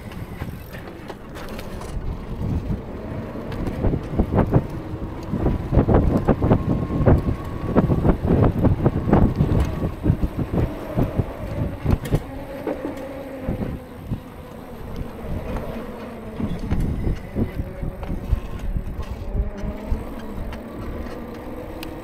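Wind buffeting the action camera's unshielded microphone while riding an electric bike, a gusty rumble that is heaviest in the first half. A few faint wavering tones run under it.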